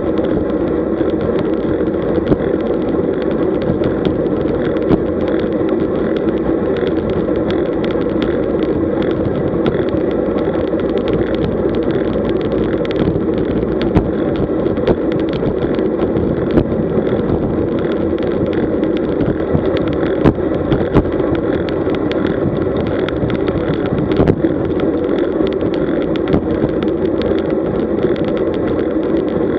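Wind rushing over a bike-mounted camera's microphone and road-bike tyres running on asphalt at about 40 km/h: a steady, unbroken rumble with occasional small knocks.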